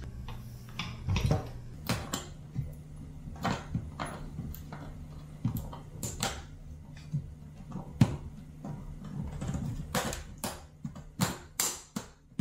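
Clicks and knocks of a body-powered prosthetic arm's metal hook and wrist unit being handled against a table, with one sharp click about eight seconds in, over a low steady hum.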